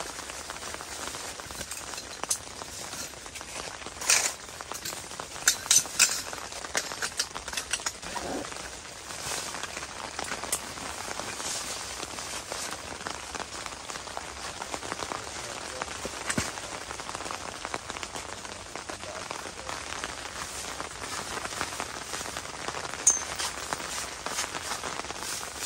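Light rain pattering steadily on the nylon tent, with rustling of bags and a few sharp clicks and knocks from gear being packed, clustered about four to six seconds in and once more near the end.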